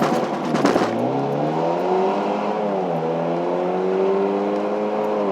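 Car engine under hard acceleration through an aftermarket exhaust, its pitch climbing, dropping sharply at an upshift about halfway through, climbing again and dropping at a second shift at the end. A rapid clatter sounds in the first second.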